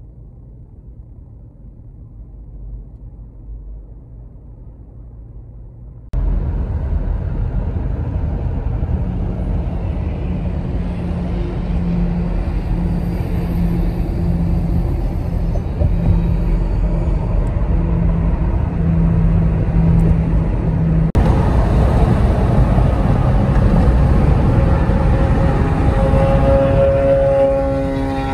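Car running, with steady engine and road rumble. It is muffled at first, then turns abruptly louder and brighter about six seconds in and again near 21 seconds.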